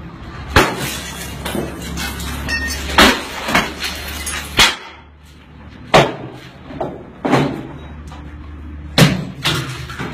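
A hammer smashing a shop counter and the computer and glass fittings on it: about nine heavy blows at irregular intervals, some in quick pairs, each with a crash of breaking glass and plastic.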